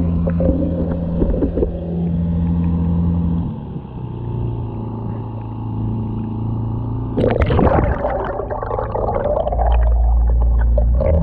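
Honda GX50 four-stroke outboard running steadily, driving the kayak through the water; its pitch shifts lower a few seconds in. About seven seconds in a splash cuts in and the engine and propeller turn into a deep, muffled rumble heard underwater.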